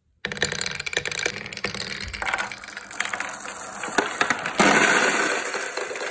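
Dozens of marbles rolling and clattering together down a wooden pegboard ramp: a dense, continuous rattle of many small clicks that grows louder a little past halfway.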